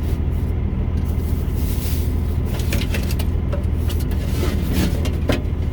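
Semi truck's diesel engine idling with a steady low hum, with a few brief clicks and rustles about two to three seconds in and again near the end.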